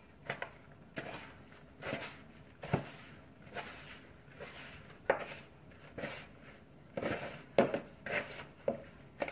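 Hands squeezing and working crumbly flour-and-water dumpling dough in a mixing bowl: irregular soft rubbing and scraping about once a second, with a few sharper knocks, the loudest near the end. The dough is still too dry to hold together.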